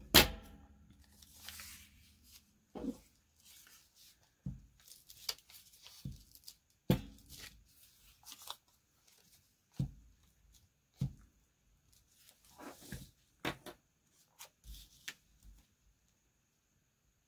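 Paper handling on a tabletop: a strip of paper rustling and tearing as it is glued down with a glue stick, with several sharp knocks and taps scattered through, the loudest right at the start.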